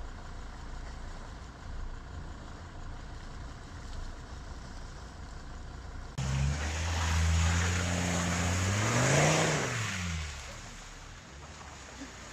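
A Volvo off-roader's engine running low, then about six seconds in it comes in loud and revs up, its pitch climbing to a peak and falling away over the next few seconds, with a rushing hiss alongside as it works through mud and water.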